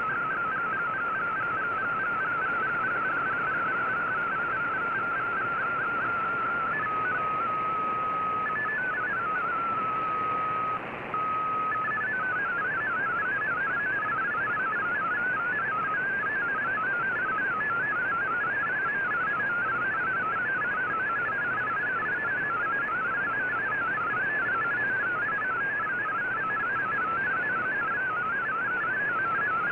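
VOA Radiogram MFSK digital data signal from a shortwave receiver: a string of warbling tones hopping quickly between nearby pitches over steady static hiss. About seven seconds in, a regular repeating pattern gives way to slower stepped tones. After a brief break about eleven seconds in, fast irregular hopping tones resume.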